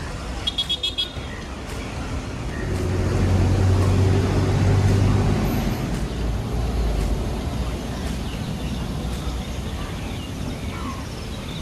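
Street traffic: a quick run of short, high horn beeps about half a second in, then a large vehicle passes with a deep engine hum, loudest about four to five seconds in, over steady traffic noise.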